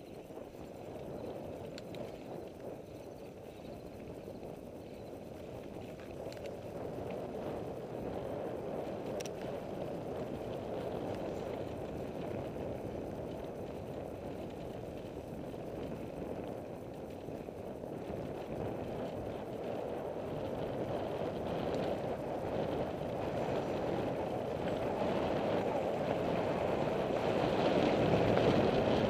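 Wind rushing over the microphone and tyre rumble from a bicycle rolling fast along a dirt trail, a steady rushing noise that grows louder toward the end.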